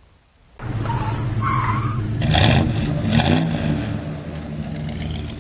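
Car engine revving, with a brief tyre screech about a second and a half in; the sound starts half a second in and fades near the end.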